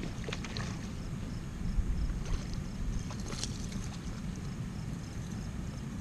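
Wind rumbling on the microphone, with a few splashes and knocks as a hooked fish thrashes at the surface close to the bank; the loudest bump comes about two seconds in.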